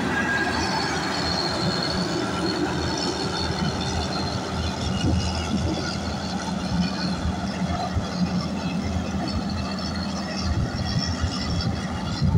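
Caterpillar 140K motor grader's diesel engine running steadily under load as the grader cuts and spreads gravel, with a thin high metallic squeal above the engine hum.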